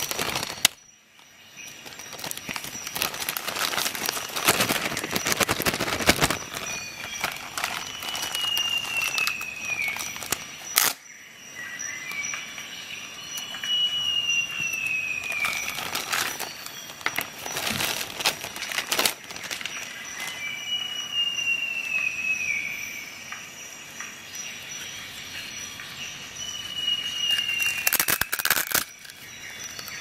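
Clear plastic bag crinkling and rustling in bursts as it is handled and pulled away. A thin high whistle falling in pitch recurs about every six seconds, alongside a faint steady high tone.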